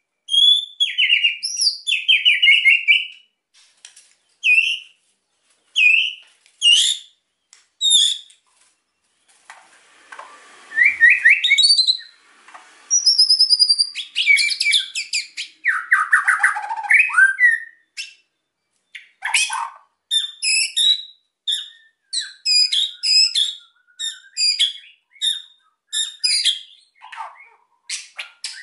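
White-rumped shama (murai batu) singing hard: a string of short whistled phrases, some sliding in pitch, giving way to rapid clipped notes in dense strings in the second half.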